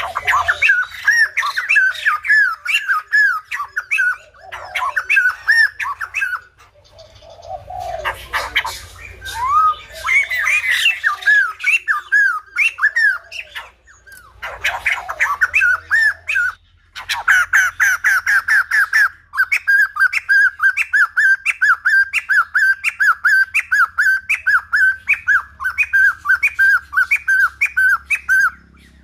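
White-crested laughingthrush calling: loud runs of repeated chattering notes, at times very fast and later about two a second, with a few short breaks.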